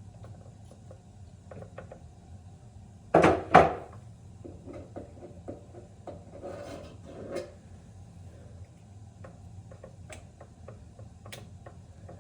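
Clicks and knocks of hard plastic water-filter parts being handled, with two loud knocks a little after three seconds in and a short rustling scrape around six to seven seconds.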